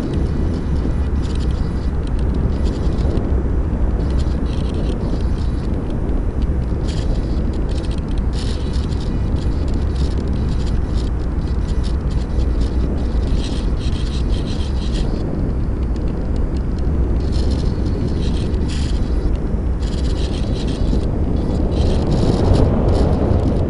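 Airflow rushing over a tiny onboard camera on an ultra-micro RC plane in flight: a steady low rumble with hiss, swelling louder near the end.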